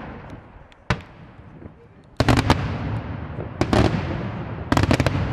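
Daytime fireworks shells bursting overhead with sharp bangs: a single bang about a second in, then three quick clusters of several bangs in the second half, each leaving a long fading echo.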